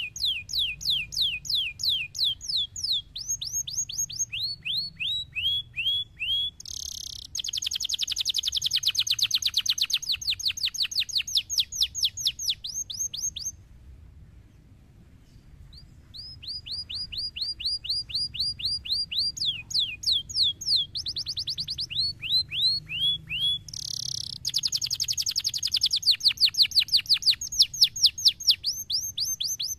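Domestic canary singing: runs of rapidly repeated sweeping notes, each phrase a steady trill at its own pitch and speed, with a short pause about halfway through before the song resumes.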